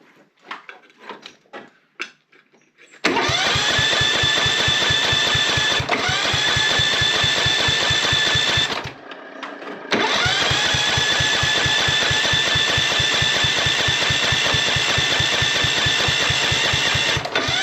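Husqvarna CT151 ride-on mower's electric starter cranking the engine in two long bursts: an even, rapid chugging under a whine that rises and then holds steady, stopping and starting again about nine seconds in. The engine does not fire, though the choke is on. A few light clicks come before the first crank.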